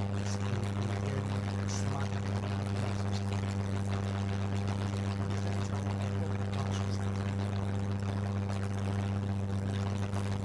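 Steady low hum with a few weaker, higher steady tones over a faint hiss, unchanging throughout.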